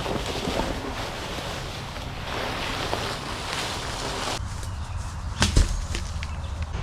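A heavy green log being dragged on a rope over the forest floor, a steady scraping rustle through leaf litter, then a single dull thud about five and a half seconds in.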